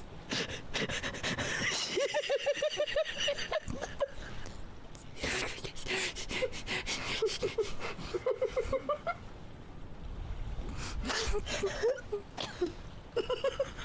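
Runs of short, pitched vocal calls, several a second and often climbing in pitch, with breathy hissing between the runs.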